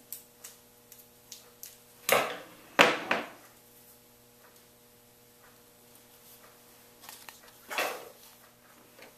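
Black vinyl electrical tape being pulled off the roll and wound around a PVC pipe piece: a few short ripping pulls, two close together about two to three seconds in and another near the end, with small handling clicks between. A faint steady electrical hum underneath.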